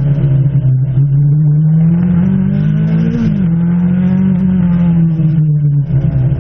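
Peugeot 205 T16 Evo 1's turbocharged four-cylinder rally engine heard on board under hard load. The revs hold, climb for about a second, drop sharply at a gear change about three seconds in, then pull on steadily.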